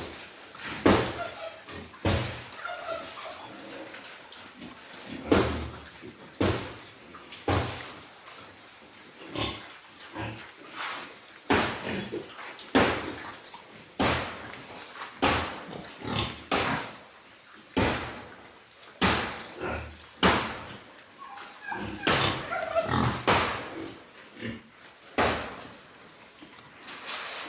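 Pigs calling: a long string of short calls, about one a second.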